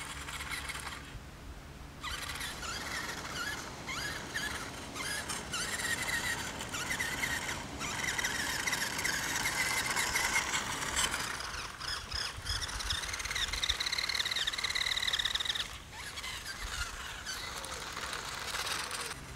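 Small electric drive motor and plastic gears of a Playmobil 5528 RC police car whining as it drives on asphalt, the pitch wavering up and down with the throttle. It cuts off suddenly a few seconds before the end.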